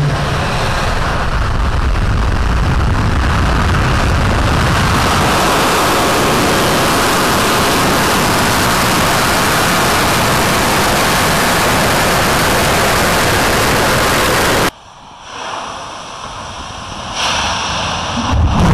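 Atlas V 401 rocket's RD-180 first-stage engine igniting and lifting off the pad: a loud, continuous, crackling rocket roar. It cuts off suddenly about fifteen seconds in, leaving a much quieter hiss that swells again near the end.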